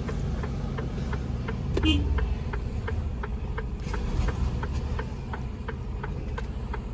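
Inside a truck cab: the tractor unit's diesel engine running steadily low, with the turn-signal indicator ticking about three to four times a second for a left turn. A brief sharper sound comes about two seconds in.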